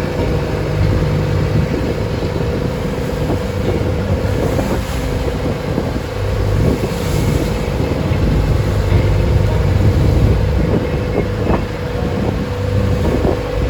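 Engine of a wooden passenger boat running steadily at sea, with wind buffeting the microphone and waves splashing against the hull.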